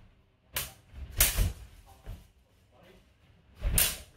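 Steel practice swords, a short rapier and a spadroon, clashing in sparring: sharp blade strikes about half a second in, a loud flurry a little after a second, a faint one near two seconds, and another loud strike near the end.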